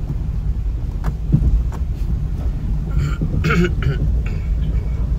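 Car cabin noise while driving slowly over a rough, waterlogged gravel road: a steady low engine and road rumble with a few sharp knocks from bumps, and a short burst of noise about three seconds in.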